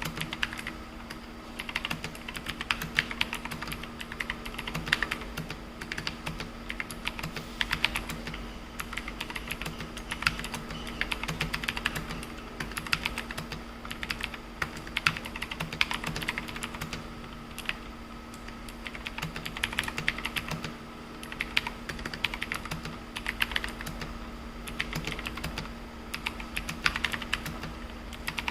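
Typing sound test on a Tecware Phantom full-size mechanical keyboard with clicky Outemu Blue switches: fast runs of key clicks, with short lulls between them.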